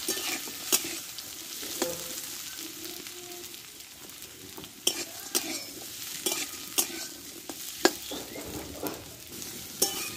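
Cut potato sticks sizzling as they fry in oil in a metal karai, while a metal spatula stirs them, scraping and clacking against the pan now and then.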